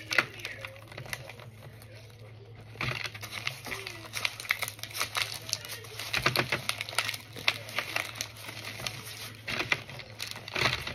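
Crunching and chewing of oven-baked cornstarch chunks: a sharp crack just after the start, then dense, rapid crackling and snapping from about three seconds in.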